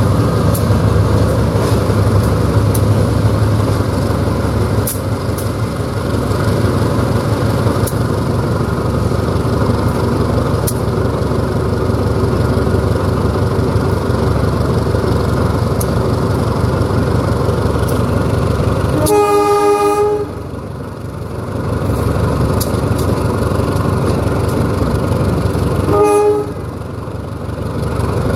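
CC 203 diesel-electric locomotive accelerating under power after a throttle notch-up: its 7FDL-8 diesel engine runs hard under the traction motors' hum. The locomotive horn sounds twice, a blast of about a second some two-thirds of the way through and a shorter one near the end.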